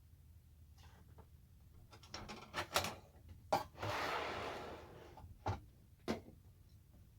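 Workshop handling sounds: a run of clicks and knocks, a scraping, sliding sound lasting about a second midway, then two more knocks, as pieces of the wooden jig are moved and set in place.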